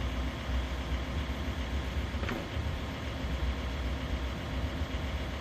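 Ford Ranger's engine idling steadily, a low rumble, with one faint click about two seconds in.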